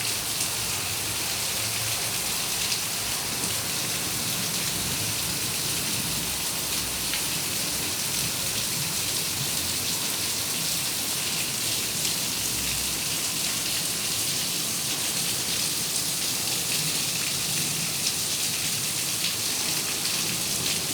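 Heavy rain falling steadily, a dense even hiss of rain on surfaces with occasional louder drop clicks.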